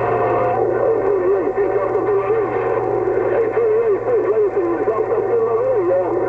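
CB radio receiver audio: band noise with a wavering, warbling tone, narrow and tinny as through the radio's speaker, over a steady low hum.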